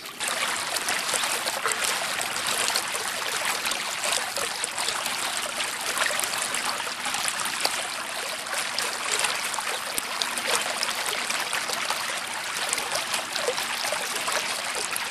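Steady trickling rush of water along a boat's hull as the boat moves through the water.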